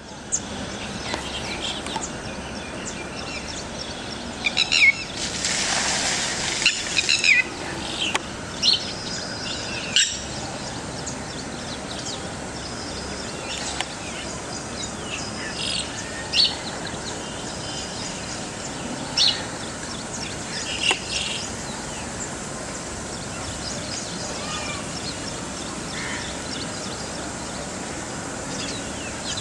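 Yellow-wattled lapwing calls: short, sharp, high calls at irregular intervals, thickest in the first ten seconds, over a steady outdoor hiss. A brief louder rush of noise comes about five seconds in.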